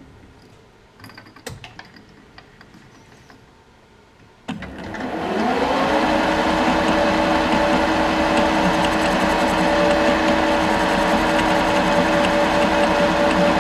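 Metal lathe switched on about four and a half seconds in: a click, then the spindle drive whines up to speed within a second and runs steadily, with a carbide turning tool cutting chips from the spinning round bar by the end. Before the start, only a few faint clicks.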